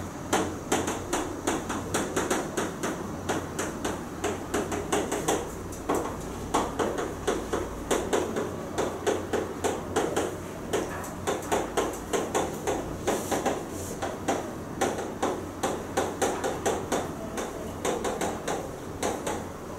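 Chalk tapping and scratching on a blackboard as an equation is written out: a quick, irregular run of sharp clicks, several a second, broken by brief pauses between strokes.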